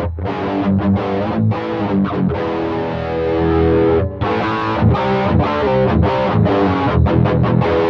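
Electric guitar played through an Xvive T1 Golden Brownie distortion pedal with drive, tone and presence at the middle, recorded direct through a cabinet simulator: a distorted riff of held chords broken by short stops and choppy muted strokes. Its tone is a little muffled at these settings.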